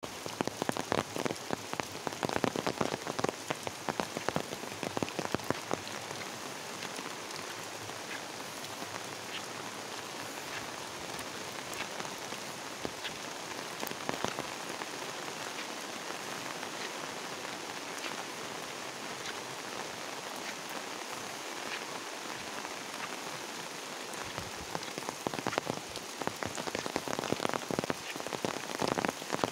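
Steady rain falling on leaves and a paved path, an even hiss full of small drop ticks. Louder, sharper close drop hits stand out for the first several seconds and again near the end.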